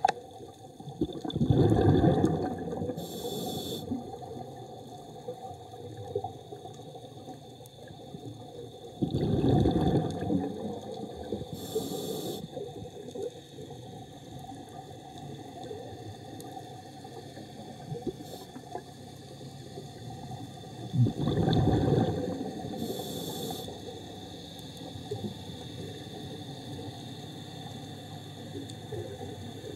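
Scuba diver's open-circuit regulator underwater: three loud rumbling gushes of exhaled bubbles, about ten seconds apart, each followed a little later by a short high hiss as the demand valve delivers the next breath.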